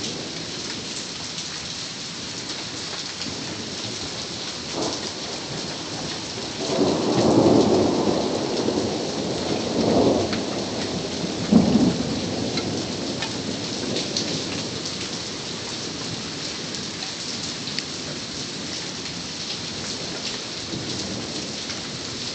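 Steady rain with individual drops ticking close by. About six seconds in, a roll of thunder builds, swells twice and ends in a sharp crack, then dies back into the rain.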